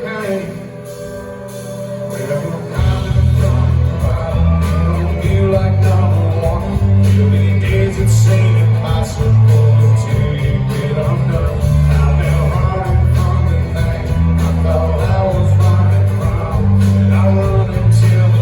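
Live country band playing, recorded from the audience. The first few seconds are quieter; then the bass and drums come in heavily and carry on.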